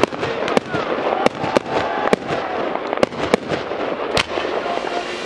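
Fireworks display: aerial shells and crackling stars bursting, about a dozen sharp bangs at uneven intervals over a steady crackling hiss, the loudest bang about four seconds in.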